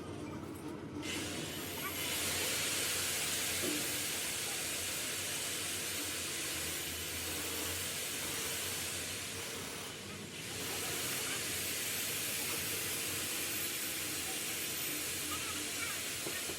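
A steady, loud hiss of rushing air or gas that starts about a second in, eases off briefly partway through, then carries on.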